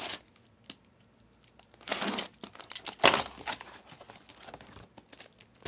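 Plastic wrap crinkling and tearing in irregular bursts, loudest about two and three seconds in, with small clicks between: a new pack of trading-card top loaders being unwrapped.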